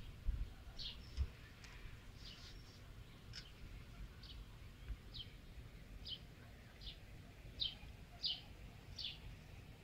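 A bird chirping over and over, faint, in short high notes that each drop slightly in pitch, a little more than one a second. There are a few soft low thumps in the first second or so.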